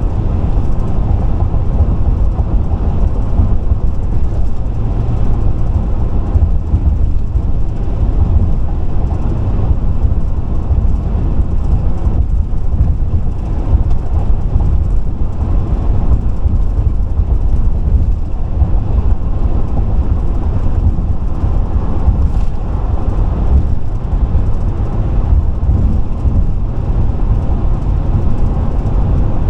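Car driving at highway speed: a steady, loud, low rumble of tyre and road noise.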